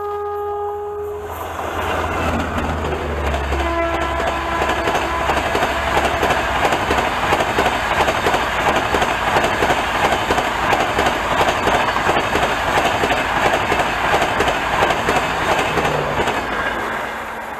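An Indian Railways express train passing at speed. Its horn ends about a second in and sounds again, shorter and lower, around four seconds in, over a steady rush of wheels clattering on the rails that fades near the end.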